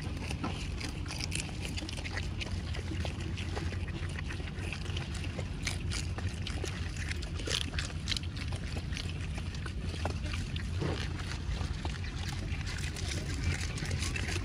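Pigs munching freshly cut water spinach close up: a dense run of wet chewing, small crunches and leaf rustling, over a steady low hum.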